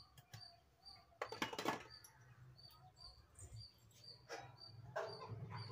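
Faint, short high-pitched chirps repeating about twice a second, with a few soft knocks a second or so in.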